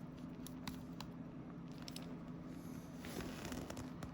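Faint, scattered ticks and clicks of a small precision screwdriver working the tiny bottom screws of an iPhone 6 Plus, over a steady low hum.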